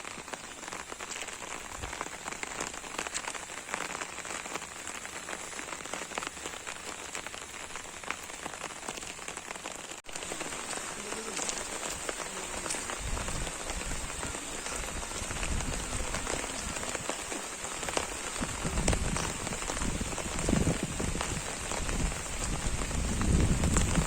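Steady rain falling on an umbrella, a dense patter of drop hits. About ten seconds in the sound changes abruptly, and low rumbling joins the rain, growing louder near the end.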